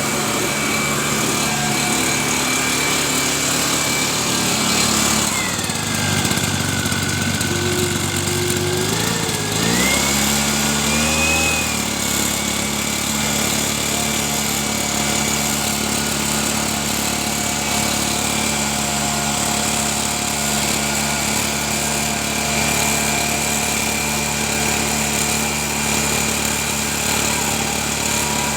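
Tasco MD-150 mist blower engine running steadily. About five seconds in it drops to a lower speed, and about four seconds later it revs back up and runs steadily again.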